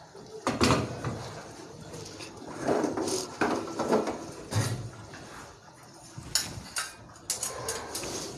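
Metal pots and utensils clattering: a series of separate knocks and scrapes, with a loud one about half a second in and a cluster from about three to five seconds in.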